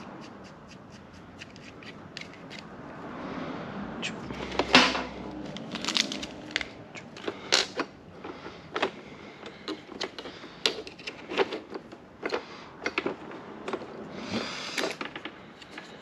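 Small parts being handled: irregular clicks, taps and light clatter as a choke cable knob is fitted and its nut put back on, with one louder clack about five seconds in.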